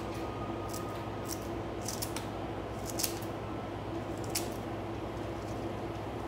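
Kitchen scissors snipping through iceberg lettuce leaves: about six short, sharp snips at uneven gaps in the first four and a half seconds, over a steady low hum.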